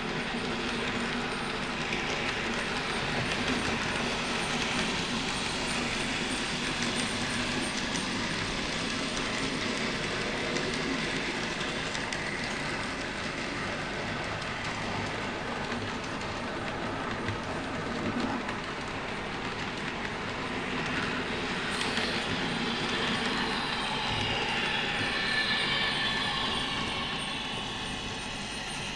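Sound decoder in an N gauge Revolution Trains Class 321 electric multiple unit model, playing electric-train running sounds through the model's small speaker, mixed with its wheels running on the track. The sound is steady throughout, with a whine that slides in pitch in the second half.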